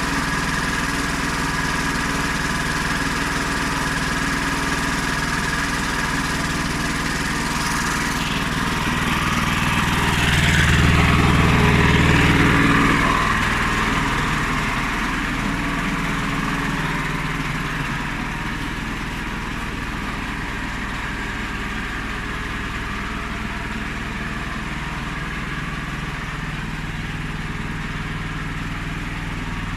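Honda GX390 13 hp single-cylinder petrol engine of a homemade portable sawmill, running steadily. It swells louder for a few seconds about ten seconds in, then settles a little quieter from about eighteen seconds on.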